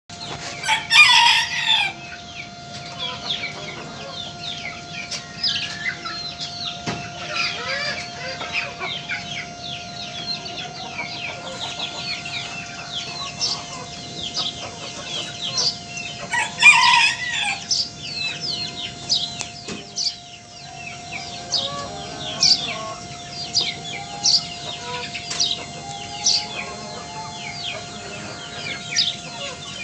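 A rooster crowing twice, about a second in and again about halfway through, over steady clucking and many short high chirps from a poultry flock.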